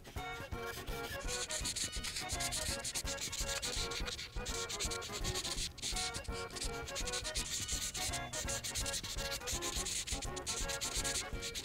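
Prismacolor art marker's brush tip rubbed rapidly back and forth over coloring-book paper: a steady, scratchy rubbing with a few brief breaks between strokes.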